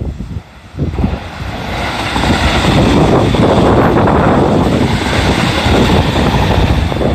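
JR Central 313 series electric train passing at speed, a loud rush of wheels on rail that builds about a second in and stays steady before starting to ease near the end.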